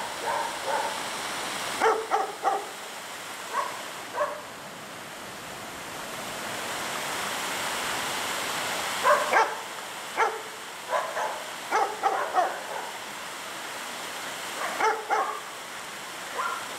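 A dog barking in short clusters of two or three barks, several times over, above the steady rush of a small waterfall and stream.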